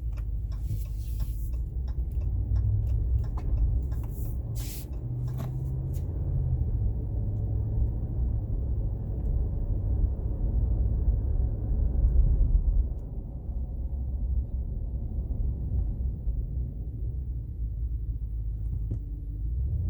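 Cab interior of a 2019 Ram 1500 on the move in 4WD Auto: a steady low driveline and road rumble with the engine drone rising and falling. A run of light ticks sounds in the first six seconds.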